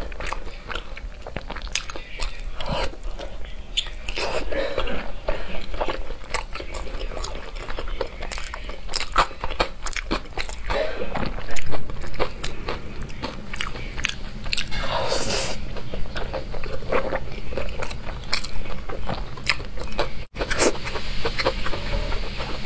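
A person biting and chewing food close to the microphone, with many short crunchy clicks throughout.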